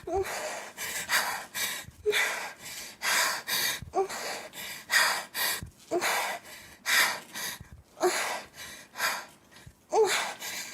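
A woman breathing in quick, forceful gasps, about one a second, each catching briefly in her voice with a short rising pitch before the hiss of air. The pace is fast enough to make her dizzy.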